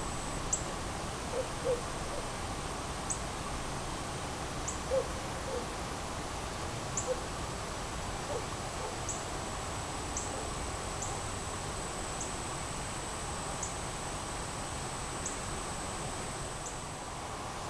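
Woodland ambience: faint, low hoots from a distant bird, in short groups of two or three, over a steady hiss. A thin, high, steady whine runs underneath with a light tick about every second.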